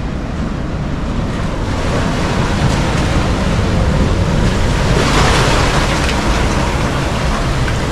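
Ocean surf washing in through a rock arch over wet sand, with a steady low buffeting of wind on the microphone. The hiss of the wash swells about five seconds in.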